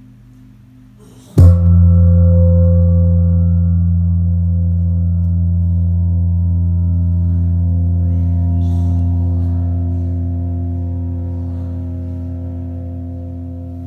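A large gong struck once about a second and a half in, then ringing on with a deep hum and slowly fading.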